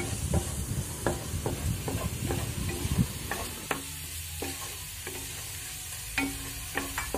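A spatula stirring and scraping a thick onion-and-spice masala in a frying pan, with irregular light knocks against the pan over a steady sizzling hiss, as the masala fries down with a little added water.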